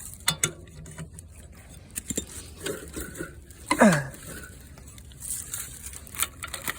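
Scattered light metal clicks and clatter as the engine and tools are handled, with one short sound falling in pitch about four seconds in.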